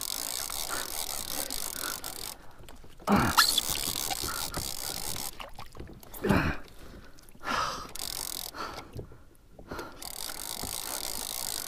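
Two-speed conventional fishing reel cranked steadily in low gear, winching line in against a heavy fish hauled up from deep water, with a few short pauses in the winding. Several short sounds falling in pitch stand out over the cranking.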